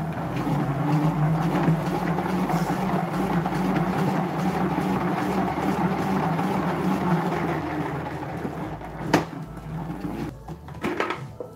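Plastic salad spinner whirring steadily as its basket spins washed salad leaves dry, dying away near the end, with a sharp click about nine seconds in.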